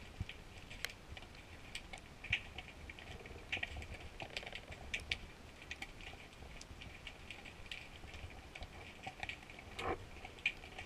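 Underwater ambience through a GoPro housing: scattered, irregular sharp clicks and crackles over a faint low rumble of water, with a somewhat louder crackle near the end.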